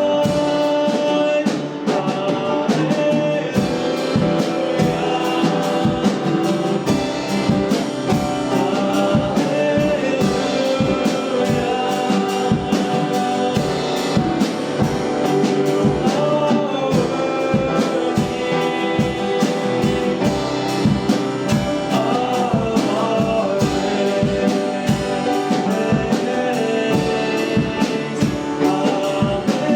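Live worship band playing a song with singing, drum kit and guitar, at a steady full level with a regular drum beat.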